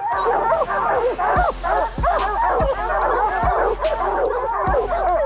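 A pack of bear hounds barking and bawling at the tree, many dogs at once in a dense, overlapping chorus: treed barking that says the bear is up the tree. A fast, even ticking joins in about a second and a half in.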